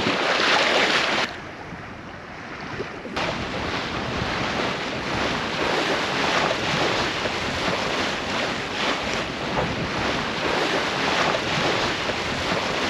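Sea water rushing and splashing along the hull of a Catalina 387 sailboat under sail, mixed with wind buffeting the microphone. The rush drops suddenly about a second in and comes back loud near three seconds.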